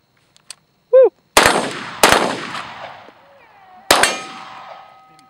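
A short beep, then three gunshots about a second or more apart, each a sharp double crack with a long echoing tail. After the third shot a steel target rings on with a steady metallic tone.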